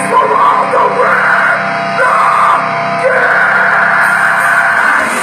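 A hardcore band playing live, with distorted guitars under a vocalist's shouted lines, about one every second, the last held longer.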